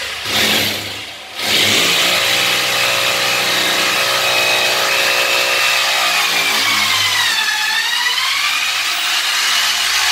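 Corded hammer drill running, boring a hole into the wall. Its motor falters briefly about a second in, then runs steadily. The pitch sags and recovers about three-quarters of the way through as the bit takes load.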